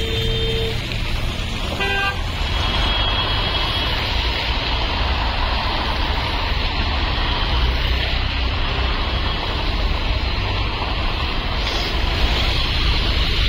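Street traffic: steady vehicle engine and road noise, with a brief car horn toot about two seconds in.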